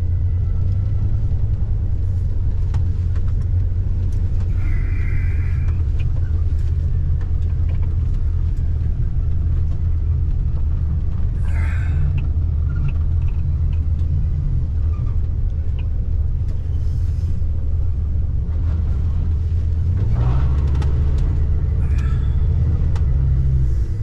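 Car engine and road noise heard from inside the cabin while driving slowly: a steady low rumble that rises in pitch about twenty seconds in as the car picks up speed.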